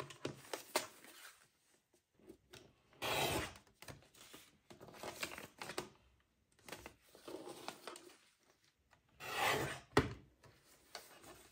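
Kraft paper being slid and positioned on a Tonic Studios lever-arm guillotine paper trimmer, with soft rustling throughout. Two louder cuts through the paper, about three seconds in and about nine seconds in, the second followed by a sharp click.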